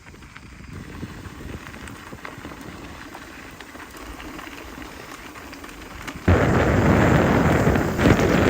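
A mountain bike ride on a dirt trail: a low rumbling ride noise, then from about six seconds in a sudden, much louder rush of wind buffeting the camera's microphone.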